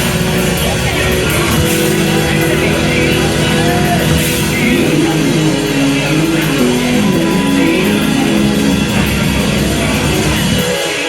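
Loud gospel music with instruments and singing; the bass drops away briefly near the end.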